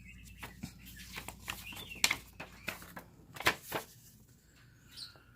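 Handling of a paper instruction leaflet and packaging: irregular soft rustles and sharp little taps and clicks as it is turned over, the loudest about two seconds in and again about three and a half seconds in.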